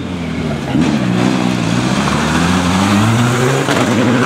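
Rally car engine under hard acceleration, its pitch dropping about a second in, as at a gear change, then climbing steadily, with tyre and road noise.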